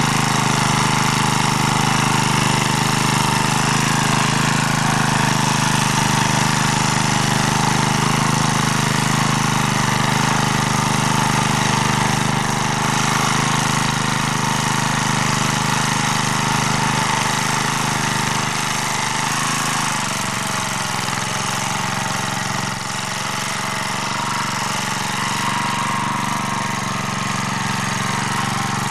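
MD3 walk-behind tractor's engine running steadily while it tills soil in first gear. About twenty seconds in, the engine note shifts slightly and gets a little quieter.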